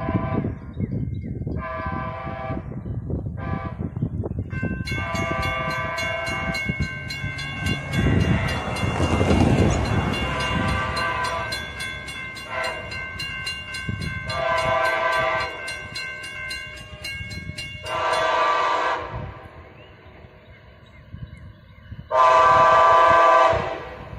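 Amtrak SC-44 Charger locomotive's horn sounding a series of blasts, one chord of several notes: two short blasts, then a long one lasting several seconds, then more blasts, the last and loudest near the end, as for a grade crossing. The rumble of the train on the rails swells under the horn in the middle.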